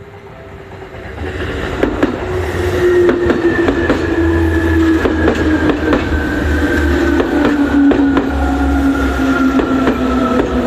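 Seibu Railway electric train passing over a level crossing, growing louder over the first second or two. Its wheels click over the rail joints in quick pairs, and the motors whine with a pitch that falls slowly and steadily.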